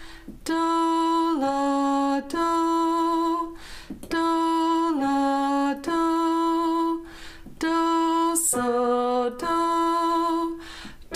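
A woman singing a descending-interval solfège exercise in E major, held notes about a second each: high do dropping to la and back twice, then do dropping to so and back.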